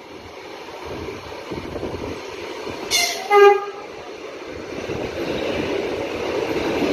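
ЭП2Д electric multiple unit arriving at a platform. About three seconds in its horn sounds twice, a short toot and then a louder, slightly longer blast. After that the rumble of the train coming alongside grows steadily louder.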